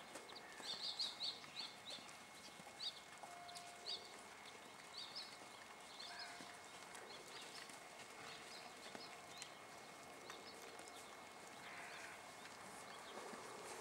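Small birds chirping in short high notes, most thickly in the first few seconds, over the faint hoofbeats of a horse being ridden on soft arena dirt.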